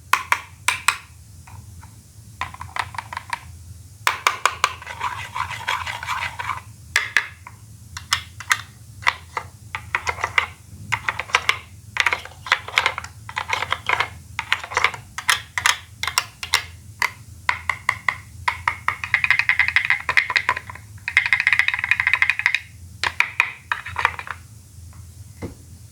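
Hard plastic toy Poké Balls clicking and snapping, many sharp clicks in quick, irregular succession, with two longer stretches of dense plastic clattering.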